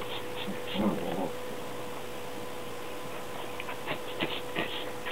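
A dog gives a brief, short vocal noise about a second in, then falls quiet except for faint clicks over a steady electrical hum.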